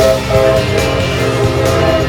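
Background music with a steady beat and changing notes.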